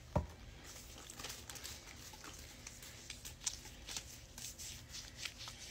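Hands handling things out of sight: one thump just after the start, then scattered light clicks and rustles.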